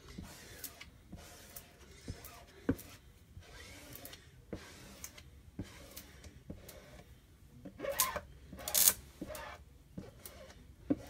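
Hand rubbing and pressing an adhesive silk-screen stencil onto window glass to push out air bubbles: scattered light clicks and taps, with two louder rubbing swishes about eight and nine seconds in.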